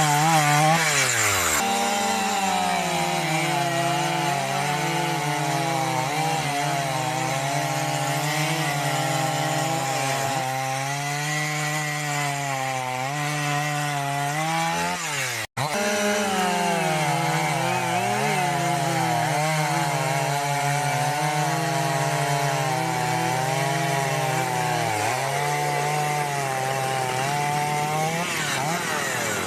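Husqvarna two-stroke chainsaw running at high revs while cutting wood. The engine pitch wavers and dips as the chain loads up in the cut, then recovers. There is a split-second break about halfway through.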